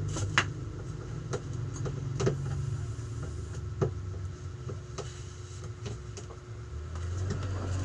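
Steady low hum with scattered light knocks and clicks, about one a second, as goods and boxes are handled.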